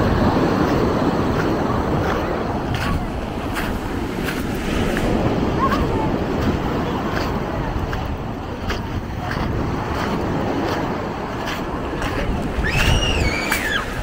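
Sea surf washing onto the beach in a steady rush, with scattered light clicks. A brief high-pitched wavering squeal rises above it near the end.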